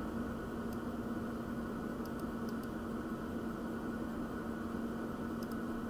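Steady background hum and hiss with a low drone, and a few faint, short ticks from a computer mouse being scrolled and clicked.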